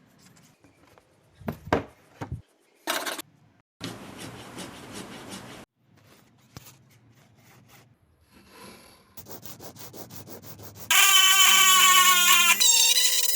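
Hand tools working wood: a few knocks and clicks, then a stretch of steady scraping and a run of quick, regular strokes on the wood. Loud music comes in near the end.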